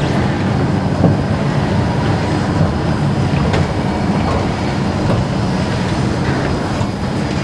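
Steady low machinery rumble in an underground MRT station, with a few faint clicks.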